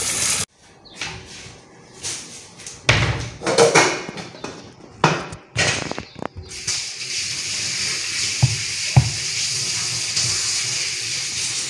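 A few knocks and thuds of kitchen items being handled, then a steady hiss from about seven seconds in, broken by two light clicks.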